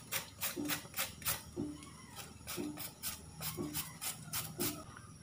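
A carrot being grated on a handheld metal grater: a steady run of quick scraping strokes, about four a second, stopping near the end.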